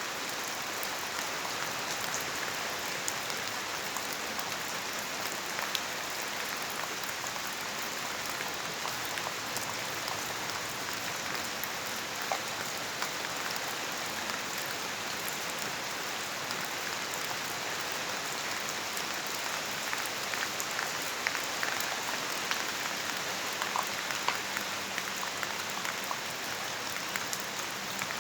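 Steady rainfall, a continuous hiss with individual drops ticking on a surface, the drops more frequent near the end.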